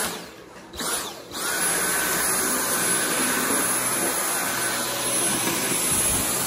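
Dyson cordless stick vacuum running. Within the first second and a half the motor cuts out twice and spins back up with a rising whine each time, as the trigger is let go and pressed again; after that it runs steadily.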